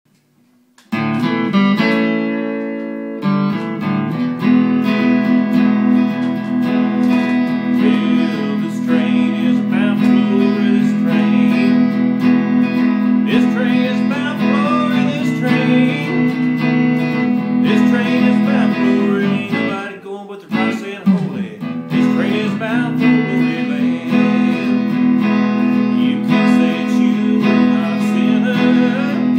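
Solid-body electric guitar played through an amplifier, strumming a gospel-blues rhythm that starts about a second in, with a man singing along from about halfway through.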